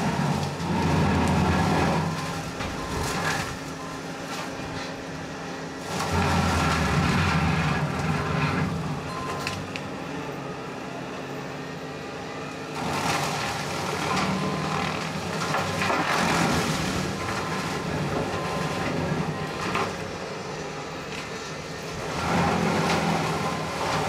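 Bobcat T770 skid steer's diesel engine and a high-flow direct-drive brush mower running under load, a steady drone. It swells into loud crunching and cracking four times, every six or seven seconds, as the blades cut and mulch 2 to 6 inch aspen saplings and thick brush.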